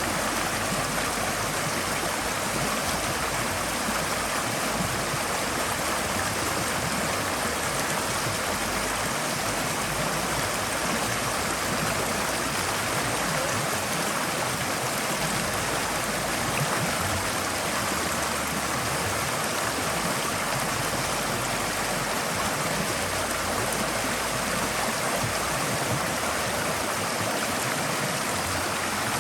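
Forest stream flowing, a steady even rush of water.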